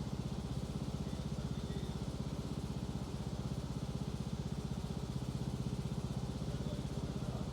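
Riding lawn mower's engine running at a steady speed, a fast, even putter with most of its sound low.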